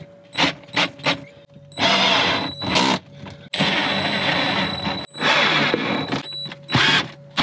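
DeWalt cordless drill/driver driving screws into the floor, running in repeated bursts with a steady motor whine: a few short pulls of the trigger, then longer runs of a second or more with brief pauses between.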